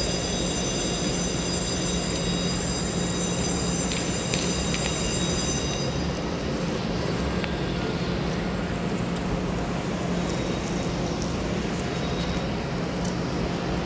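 Train noise at a railway station: a steady rumble with a cluster of high, steady whining tones that stop about six seconds in, leaving a steady rushing noise.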